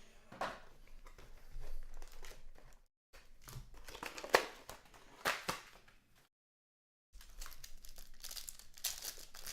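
Sports card box packaging being opened and handled: crinkling and tearing with a few sharp snaps, in short bursts broken by two brief silent gaps.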